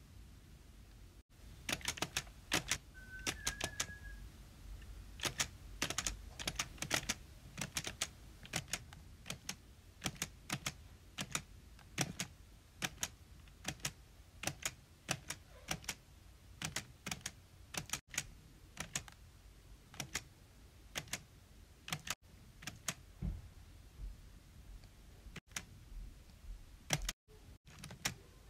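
Close-up ASMR clicking: sharp, irregular clicks, about one or two a second, often in quick pairs, with a brief squeak about three seconds in.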